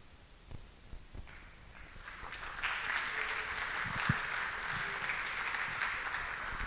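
Audience clapping, a dense patter of many hands that builds about two seconds in and then holds steady.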